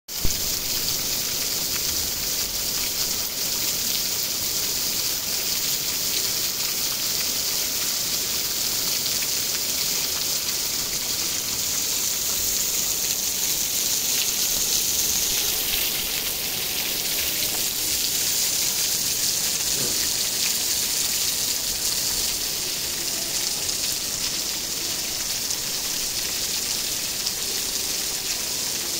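Heavy rain pouring steadily onto a wet asphalt road and grassy roadside: an even, dense hiss with no let-up.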